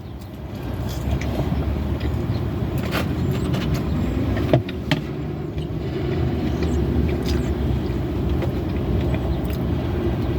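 A motor vehicle's engine running with a steady low rumble that swells in over the first second and then holds, with a few small clicks and knocks over it.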